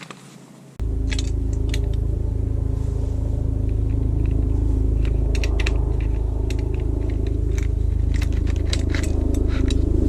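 Small metal roof-rack clamp parts clicking and clinking as they are handled, over a loud steady low hum that starts abruptly about a second in.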